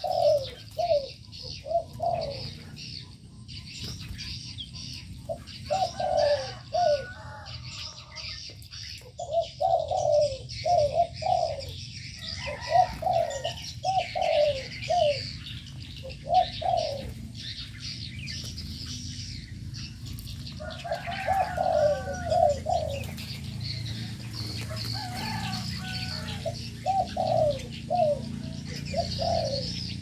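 Spotted doves cooing repeatedly, each phrase a short run of three or four low, falling notes, repeated every few seconds. Smaller birds chirp in higher tones throughout.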